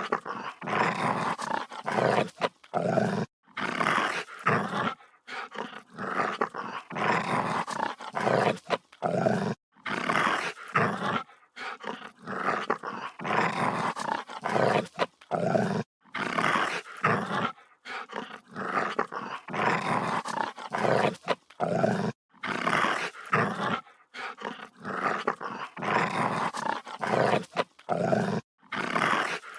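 Dog growling aggressively in a run of rough, snarling growls, each about half a second to a second long, broken by short gaps.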